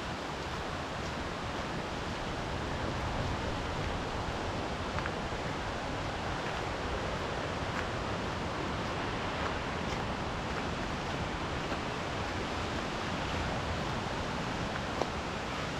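Steady rushing outdoor noise, even and unbroken, with a few faint scattered clicks.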